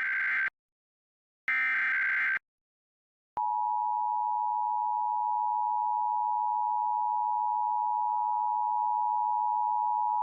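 Emergency Alert System test tones: the last two bursts of the digital SAME header, each a harsh buzzing data screech just under a second long, followed from about three seconds in by the steady two-tone EAS attention signal. Together they mark the start of a statewide Required Monthly Test.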